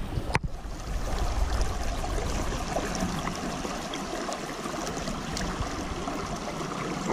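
Water swirling and trickling in a gold pan held in a running creek as gravel is washed down to the concentrate. A sharp click about a third of a second in.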